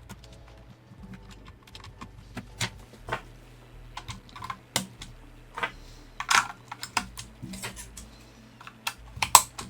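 Irregular plastic clicks and clatter as the Game Boy Color's plastic case parts are handled and fitted back together during reassembly.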